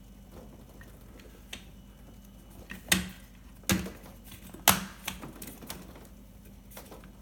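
Scattered clicks and knocks of plastic and metal parts as a freezer door handle is pressed onto its spring-loaded mounting pieces, with three sharper knocks about a second apart near the middle. The handle is not seating because its bar is catching.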